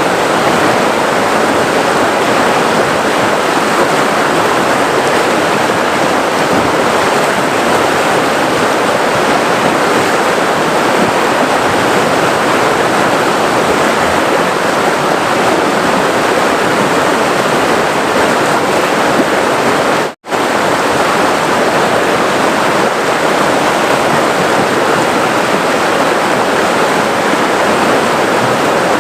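River water flowing and rushing steadily, a dense even wash of sound, which cuts out for an instant about two-thirds of the way through.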